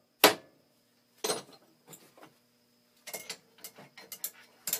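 Hammer striking a center punch on the metal workpiece: one sharp hit just after the start and a softer one a second later. This is followed by a run of light metallic clicks and rattles from handling the tools and vise grips.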